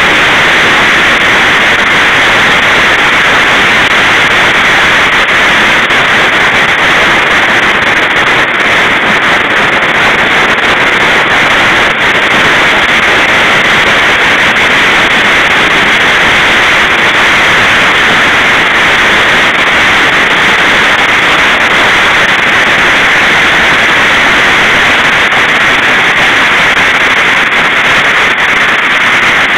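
Heavy hail falling hard, a loud, steady, dense hiss of countless hailstones striking with no let-up.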